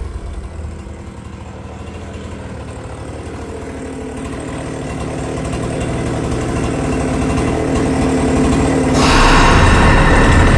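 Two-stroke chainsaw engine running, growing steadily louder, then jumping sharply louder about nine seconds in.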